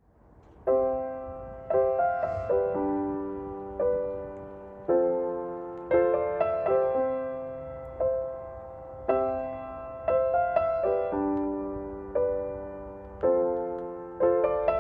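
Background music: a slow, gentle piano tune, notes and chords struck and left to fade, a new one about every second.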